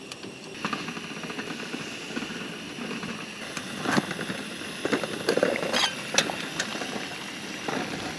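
Portable gas canister stove burning under a lidded aluminium camping pot as the water and eggs come to the boil, a steady hiss and bubbling. Light metallic clicks of the pot lid being handled come a few times in the middle.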